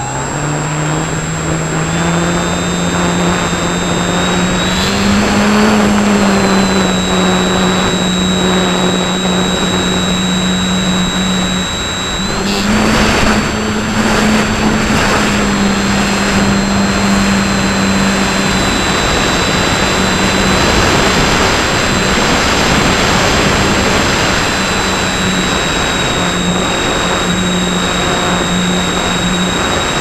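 Electric motor and propeller of a Pelikan Gama 2100 RC electric motor glider running under power, heard from a camera on board: a steady propeller hum with a high motor whine above it, over rushing airflow. The pitch rises a little about five seconds in, and about twelve seconds in it dips briefly, then comes back slightly higher as the throttle changes.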